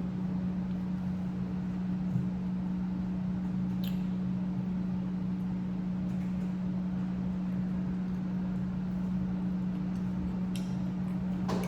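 A steady low electrical-sounding hum over constant room hiss, with a few faint clicks about four seconds in and twice near the end.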